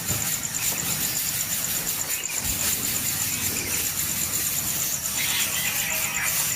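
Outdoor nature sound: a steady, high-pitched, rapidly pulsing buzz like an insect chorus over a low rumble, with a short burst of squeaky chick-like begging calls about five seconds in.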